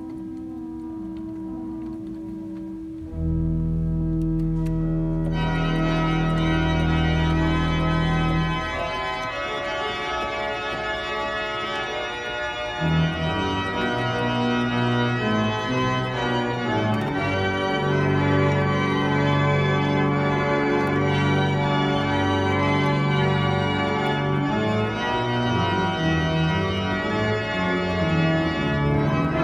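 Two-manual church organ playing a Christmas medley in sustained chords. It starts soft, a deep bass line comes in about three seconds in and the sound turns fuller and brighter a couple of seconds later, then carries on loud with moving chords.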